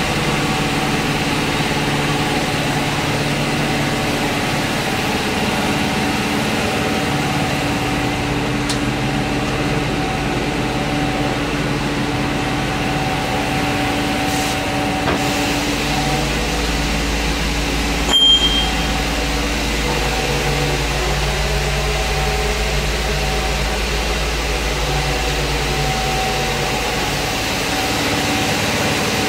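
Machinery running with a steady hum of several held tones over a low rumble, the rumble growing deeper for much of the time. A single sharp knock about two-thirds of the way through.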